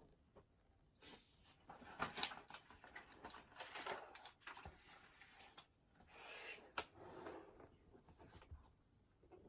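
Faint rustling and handling noises at a desk, with a few sharp clicks along the way.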